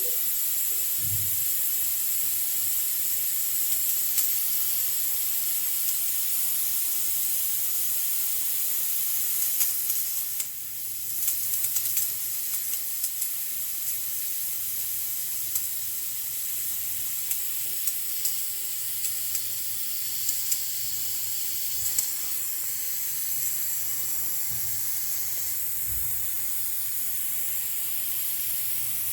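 Pressure cooker letting off steam: a steady high hiss with a thin high tone running through it. The hiss dips briefly about ten seconds in, and light clicks are scattered through it.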